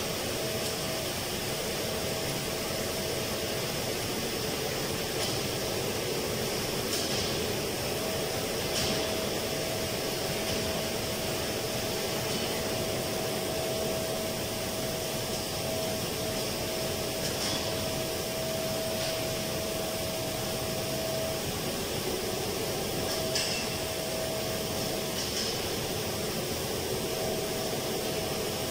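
Steady rush and hum of running air-conditioning and ventilation machinery, with a faint steady whine that drops out and returns several times. A few light taps and knocks come through, from handling the drain pipe.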